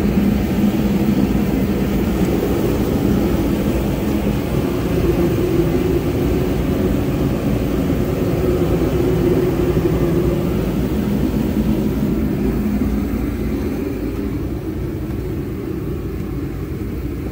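A diesel engine idling steadily, a constant low drone that eases slightly in the last few seconds.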